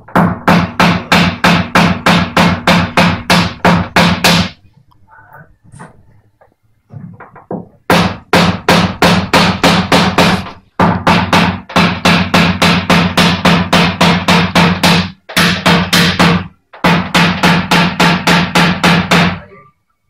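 Rapid, even hammer taps on a PDR knockdown tool held against a Lada Granta's steel front wing, about four a second, in four runs with short pauses between them. The taps knock down a raised spot along the crease.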